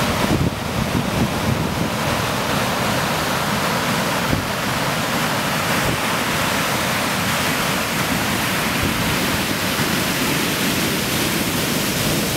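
Big shore-break surf breaking and washing over the sand: a steady, dense rush of whitewater with no let-up.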